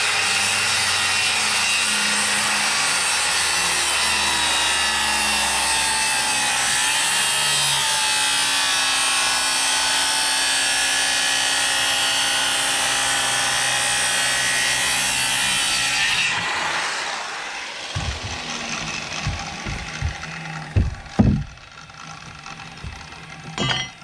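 Corded circular saw cutting across a thick, freshly sawn green timber beam, running steadily under load for about sixteen seconds, at the blade's full depth since it cannot reach all the way through the beam, then winding down. A few knocks and thumps follow as the saw is set down on the timbers, the loudest a few seconds after the saw stops.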